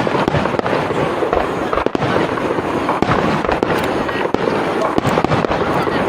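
Japanese star mine fireworks sequence: many aerial shells bursting in rapid succession, a dense continuous crackling with frequent sharp bangs and booms.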